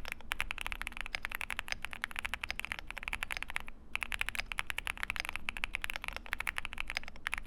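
Fast typing on an IQUNIX Nature 80 full-aluminium mechanical keyboard with Moonstone switches and PBT keycaps: a quick, continuous run of key clacks, with a short pause a little before four seconds in.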